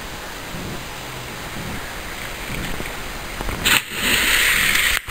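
A person jumping off a bridge into lake water: a sudden loud splash about three and a half seconds in, lasting about a second and cutting off abruptly.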